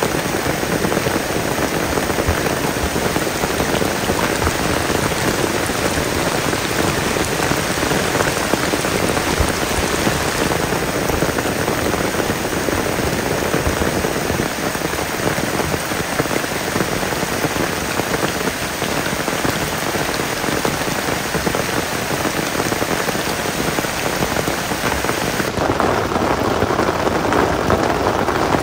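Heavy rain falling steadily on leaves, grass and puddles. Near the end the sound changes to rain hitting tent fabric, heard from inside the tent.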